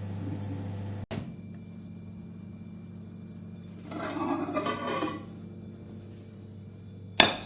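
Microwave oven humming steadily as it runs, then a sharp click about a second in as the door is opened and the hum drops away. Rattling handling noise follows around four seconds in, and a single loud clack near the end.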